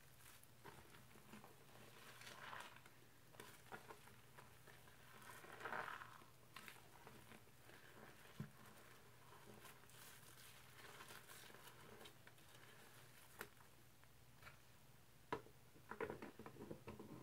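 Faint wet squishing and crackling of thick laundry-detergent foam being worked and lifted by rubber-gloved hands in a sink, with a few soft clicks. Near the end comes a burst of quick wet crackles as the hands work a sudsy rag in the water.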